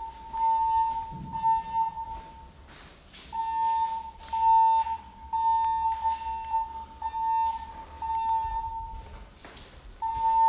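Building fire alarm voice-evacuation system sounding its electronic alert tone between spoken evacuation messages. It is a steady, fairly high beep repeated in pulses of about a second, with a pause of about a second near three seconds in and another near the end.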